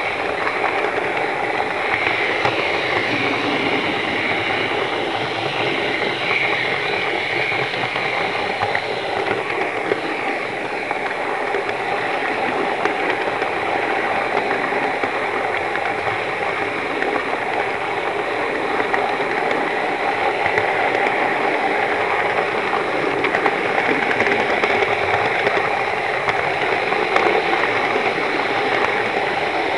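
HO scale model train running, heard close up from a car riding on it: a steady whirring hiss from the locomotive's motor and the wheels rolling on the rails.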